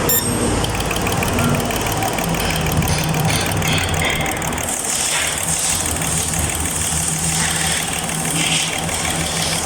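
Fuel injector cleaning and test machine running with an injector firing: a steady hum with rapid regular clicking, and a high hiss that joins about halfway through.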